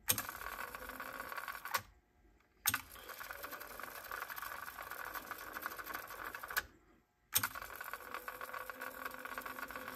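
Sony TC-K777 cassette deck's tape transport fast-winding a cassette in three runs, each started and stopped with a sharp click of the transport keys and the reel brakes, with two short silent pauses about two seconds and seven seconds in. It winds smoothly and quietly, and the brakes stop the reels cleanly now that their spring is properly refitted.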